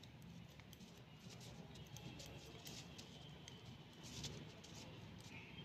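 Faint, irregular clicking and ticking of metal knitting needles as stitches are worked, with a slightly busier cluster of clicks about four seconds in.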